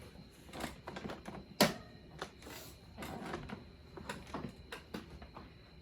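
Scattered, irregular clicks and knocks of hand work on a car seat's metal frame and fasteners, with one sharper knock about a second and a half in.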